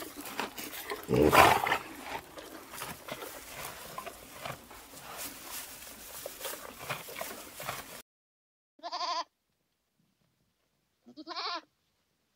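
Two short, wavering bleats about three seconds and one second before the end, from a hoofed animal, goat-like in character. Before them, a steady outdoor background noise with a louder swell about a second in cuts off abruptly.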